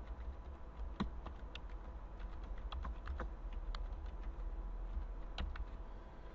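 Typing on a computer keyboard: a run of irregular key clicks, over a faint steady low hum.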